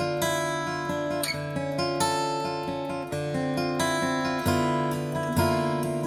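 Acoustic guitar playing the instrumental introduction to a song, chords strummed and picked in a steady rhythm.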